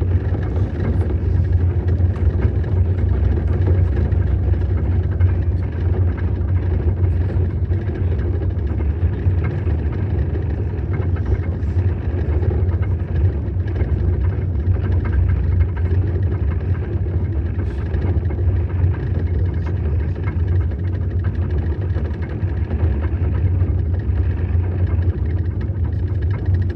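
Snow crawler's engine and tracks running steadily as it drives over the snow, a continuous low drone.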